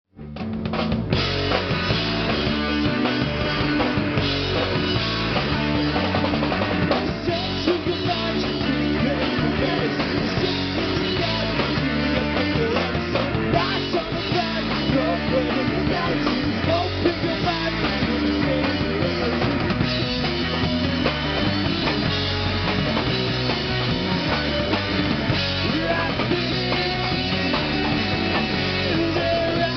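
Punk rock band playing, drum kit and guitar together.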